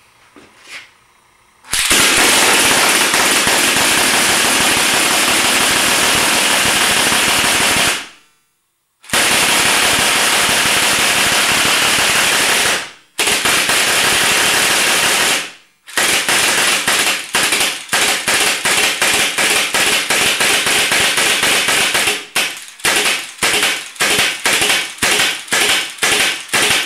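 Homemade air-powered gatling-style paintball minigun firing in long continuous bursts of rapid shots, then in a string of short bursts about two a second.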